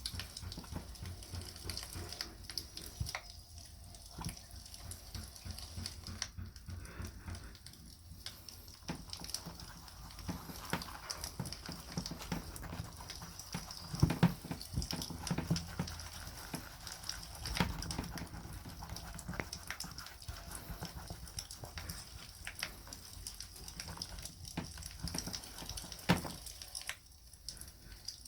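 Wood campfire crackling with scattered sharp pops, mixed with close rubbing and handling noise as beeswax is worked into a leather knife sheath. A few louder knocks come near the middle.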